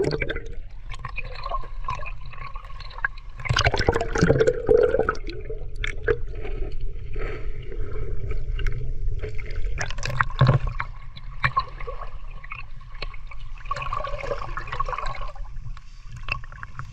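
Water sloshing, gurgling and bubbling around a camera at the waterline as it dips under and surfaces beside a swimming dog, with stronger bursts of splashing about four and ten seconds in.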